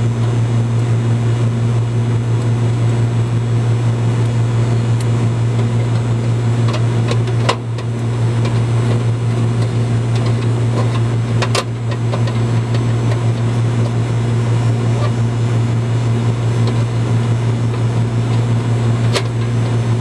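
Steady, loud low mechanical hum, with two sharp clicks about seven and eleven seconds in as the capacitor and hard start kit leads are handled.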